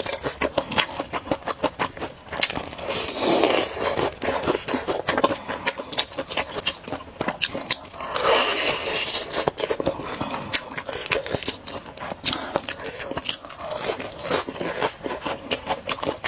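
Close-miked mukbang eating: chewing and crunching with many small wet clicks, and a couple of longer, louder mouth sounds about three and eight seconds in.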